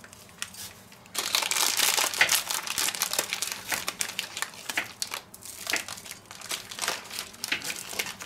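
Plastic bag of almonds crinkling as the nuts inside are crushed by hand. A dense crackle starts about a second in, then thins to scattered crinkles and ticks.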